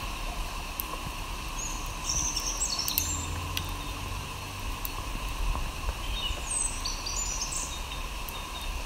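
Birds chirping in the trees, short high calls in two bouts a few seconds apart, over a steady outdoor background hum.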